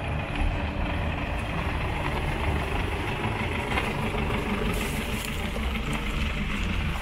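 Mercedes-Benz Sprinter 4x4 van, towing a small off-road trailer, driving slowly past on a dirt track: a steady engine rumble with the noise of the rolling vehicle.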